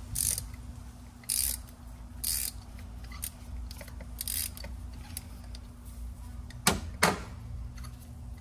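Hand ratchet clicking in short runs, about a second apart, as a spark-plug socket on an extension unscrews a spark plug. Near the end come two sharp metallic knocks, the loudest sounds.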